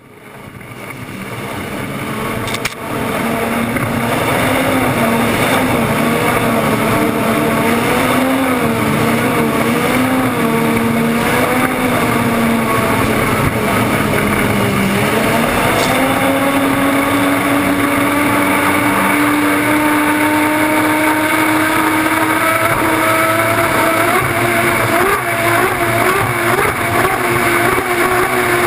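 Turbine-powered H1 Unlimited hydroplane running at racing speed, heard onboard: a wavering engine whine over rushing wind and water. It fades in over the first few seconds, dips in pitch about halfway through, then climbs again.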